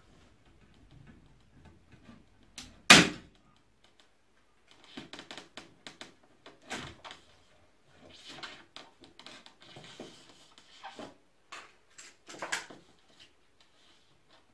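Hand-work handling noises: one sharp knock about three seconds in, then a run of small clicks, taps and rustles as parts of a home-made hot-wire foam cutter are put together.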